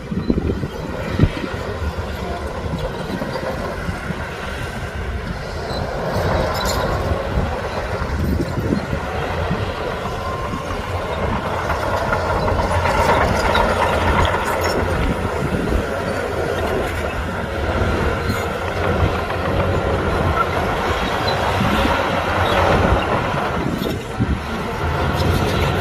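Crawler bulldozer working: diesel engine running under load, with its steel tracks clanking and squealing. The clatter grows somewhat louder past the middle.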